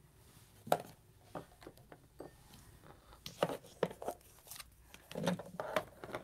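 Plastic ink-pad cases and other craft supplies being picked up and set down on a table: a scatter of light clicks and knocks, bunched together near the end.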